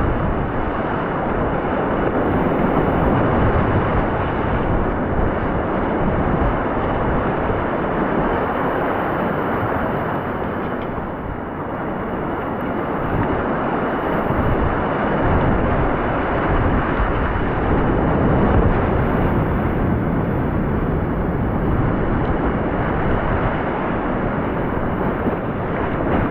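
Whitewater rapids rushing and churning around a kayak: a loud, steady rushing of water that eases slightly about halfway through, then builds again.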